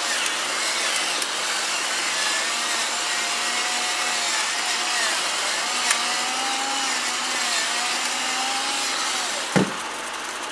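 Motorized pepper mill grinding pepper over a wok, a steady grinding whir with a thin whine that wavers in pitch, while the stir-fry sizzles underneath. The grinding stops about nine and a half seconds in with a knock as the mill is set down.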